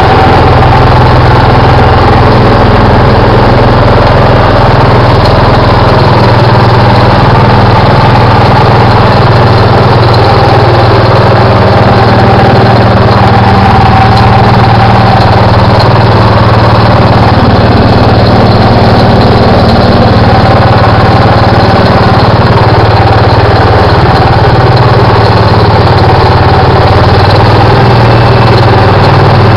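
The engine of a 1969 Allis-Chalmers B212 garden tractor running loud and steady under load, driving a Simplicity snowblower that is throwing snow, with a constant higher hum over the engine note.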